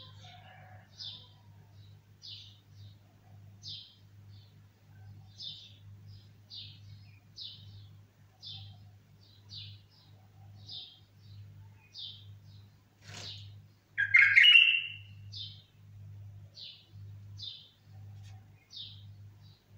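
A caged bulbul giving short, high chirps about once a second, with a sharp knock about 13 seconds in followed by a louder, harsher call. A steady low electrical hum runs underneath.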